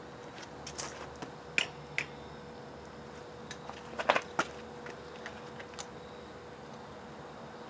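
A few sharp, light metal clicks and clinks from hand tools and parts being handled, the loudest cluster about four seconds in, over a faint steady hum.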